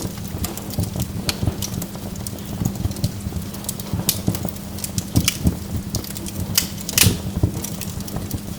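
Burning wood logs crackling, with irregular sharp snaps and pops and one louder pop about seven seconds in.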